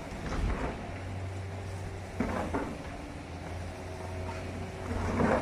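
High-reach demolition excavator running with a steady low engine hum while its crusher jaws break concrete from a building, with a sudden crunch about two seconds in and a louder one near the end.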